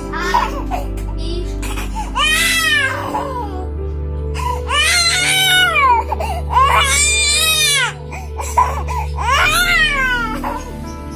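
A baby crying in a string of about five wails, each about a second long, rising and then falling in pitch, while being given a massage for a cough and cold.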